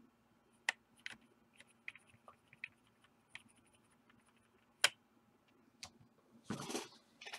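Faint, scattered sharp clicks of someone working a computer, about ten at irregular intervals with the loudest just before five seconds in, over a faint steady hum. A short rush of noise comes near the end.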